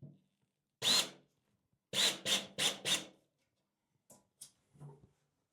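Hand-tool sounds at the shower door's hinge hardware: one sharp stroke about a second in, then four quick ones in a row, each with a brief high ring, and a few faint ticks near the end.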